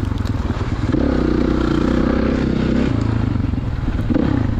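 2016 Kawasaki KX450 dirt bike's single-cylinder four-stroke engine running under throttle through a spark arrestor. The engine note holds steady, eases off near three seconds in and picks up again about a second later.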